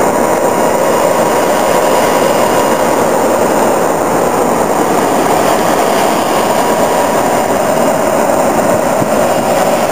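Steady, loud machinery noise from a working drilling rig.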